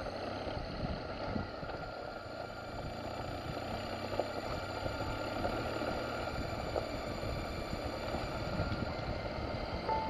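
Adventure motorcycle riding along a gravel road: the engine runs steadily under the tyres' crunch, with irregular knocks and rattles as the bike passes over the gravel.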